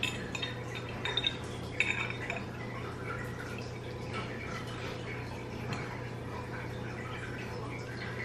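A metal fork clinking and scraping against a dinner plate a few times in the first two seconds, then only a steady low hum.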